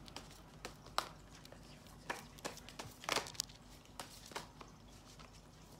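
A deck of tarot cards being shuffled by hand: irregular soft clicks and snaps of cards, with a quick flurry about three seconds in.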